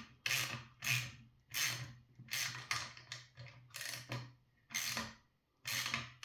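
Ratchet wrench clicking in short repeated strokes, running a nut down onto a bolt, with a brief pause just after five seconds in.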